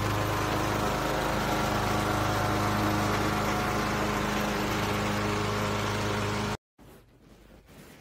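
Riding lawn mower's engine running steadily. It cuts off abruptly about six and a half seconds in.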